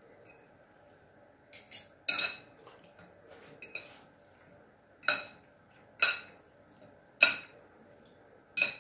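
A metal utensil clinking against a salad bowl: about seven sharp, ringing clinks roughly a second apart.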